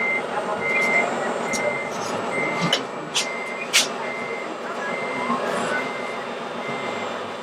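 Reversing warning beeper of a radio-controlled model truck's sound module, a single high beep repeating about every 0.8 seconds as the truck backs up. A few sharp clicks sound between the beeps.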